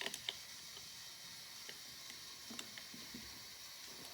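A few faint, scattered clicks and light taps of small metal parts being handled, with a couple near the start and a few more spaced through the middle.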